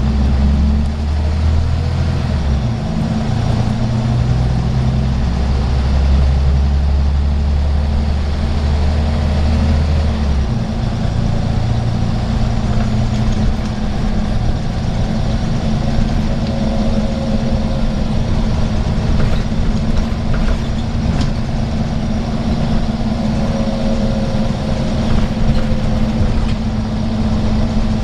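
Scania N94UB bus's rear-mounted diesel engine running as the bus drives, heard from inside the passenger saloon. It is a steady low drone that gives way to a rougher low rumble about ten seconds in.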